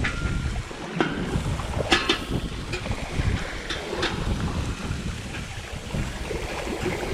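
Wind buffeting the microphone over the rush of the sea around a sailboat, with several sharp clicks in the first few seconds.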